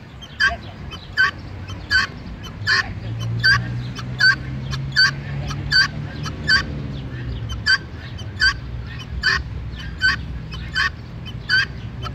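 Helmeted guineafowl calling a short, harsh note over and over at a steady pace, about fifteen calls with one every three-quarters of a second. A low hum runs underneath, strongest through the middle.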